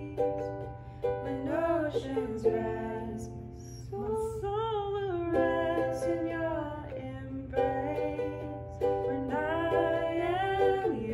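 Acoustic guitar played under a woman singing a slow worship song, her voice holding long notes and gliding between them, with short gaps between phrases.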